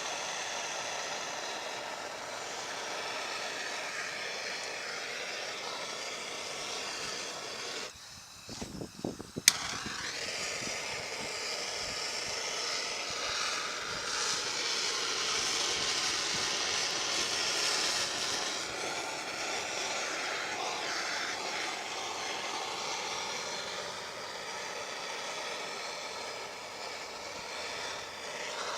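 A steady machine drone with a constant high whine in it. About eight seconds in it drops away briefly, with a few clicks and one sharp click, then carries on.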